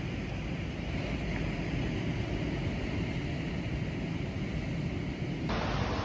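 Wind buffeting the microphone outdoors: a steady low rumble with a hiss above it. About five seconds in it changes abruptly to a brighter, thinner hiss.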